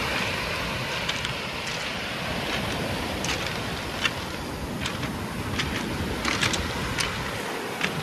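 Pacific surf washing up and draining back over a pebble beach: a steady rushing hiss with scattered sharp clicks.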